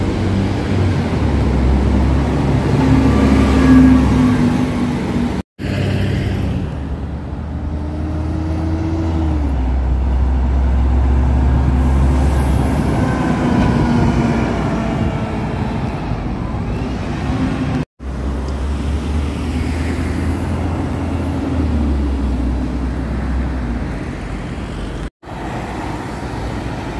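City buses pulling away and driving past close by, their engines running with a low drone that rises and falls in pitch as they accelerate, over street traffic. The sound drops out abruptly three times.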